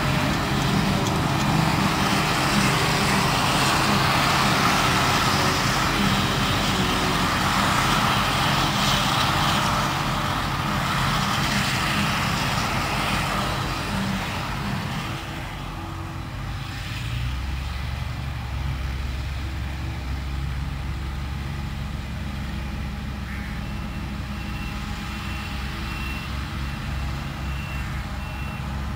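Claas Jaguar self-propelled forage harvester working at full load, its chopper and blower whirring loudly over the diesel engine. After about fifteen seconds the chopping sound falls away and a tractor's diesel engine running close by takes over, with a faint intermittent beeping near the end.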